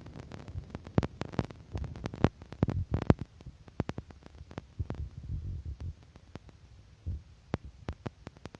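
A quick, irregular run of sharp taps and soft low thuds, many in the first five seconds and only a few after that.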